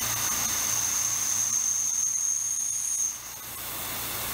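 Tormach PCNC 770 CNC mill peck-drilling a deep, small-diameter hole in aluminium with a partial-retract cycle: a thin, high-pitched spindle whine over a steady hiss. The whine stops about three seconds in, as the drill comes out of the hole.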